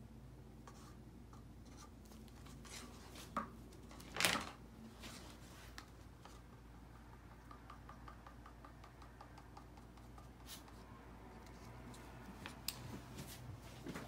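A stir stick scraping the inside of a paper cup as thick white acrylic paint is scraped out, with a few light clicks and knocks, the loudest about four seconds in. A run of faint quick ticks comes in the middle, over a low steady hum.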